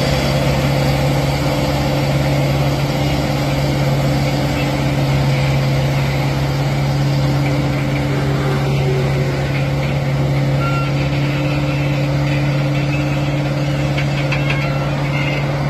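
Heavy truck's diesel engine idling steadily: one low, even tone with a rapid pulsing beneath it.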